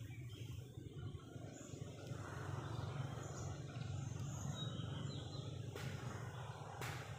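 Outdoor roadside ambience: a steady low rumble with a few faint, short bird chirps, and two sharp clicks near the end.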